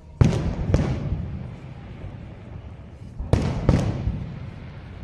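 Aerial firework shells bursting: two pairs of sharp booms, each pair about half a second apart, with the second pair about three seconds after the first. Each boom trails off in a rumble.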